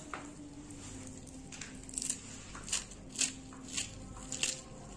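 Knife cutting through fresh bathua (lamb's quarters) greens held in the hand, without a board: short crisp snips about one every half second, starting about two seconds in.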